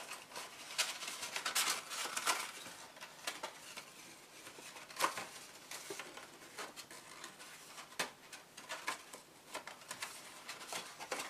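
Cardstock gift box being folded and handled by hand: irregular rustling and crinkling of the paper with scattered sharp clicks and creases, the clearest about two and five seconds in.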